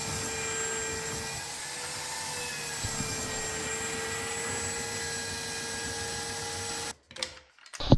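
Belt sander running steadily on the end grain of a hardwood cutting board: a steady motor whine over the hiss of the abrasive belt on wood. It stops abruptly about seven seconds in, followed by a few short knocks.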